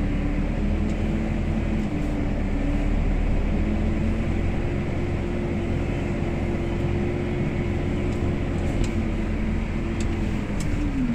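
Valtra N143 HiTech tractor's diesel engine running steadily, heard from inside the cab while it tows an empty trailer; its note rises slightly a few seconds in and drops near the end as the revs fall.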